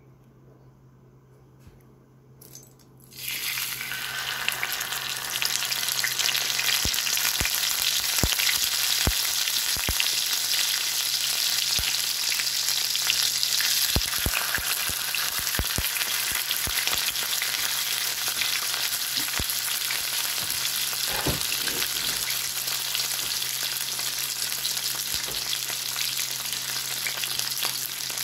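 Whole alewives frying in hot fat in a cast-iron skillet. The sizzle starts suddenly about three seconds in, as fish go into the pan, then holds steady with scattered pops.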